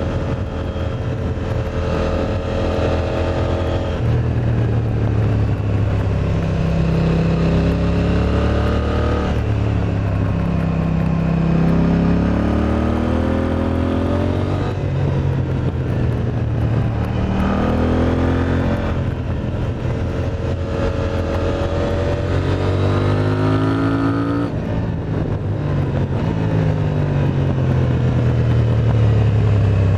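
KTM 890 Duke R's parallel-twin engine through an Akrapovic exhaust, riding and accelerating. The pitch climbs and drops back repeatedly as it revs up and shifts, several times in a row.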